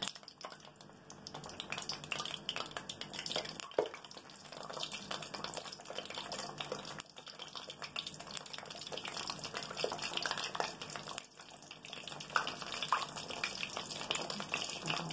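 Raw yeast-dough doughnuts sizzling in hot oil in a frying pan, a steady frying hiss with a dense crackle, as more pieces are laid into the oil.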